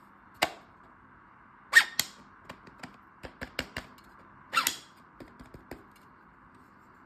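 3D-printed plastic buttstock being slid in and out and latched, giving sharp plastic clacks: loud ones about half a second in, twice near two seconds and near four and a half seconds, with lighter clicks between.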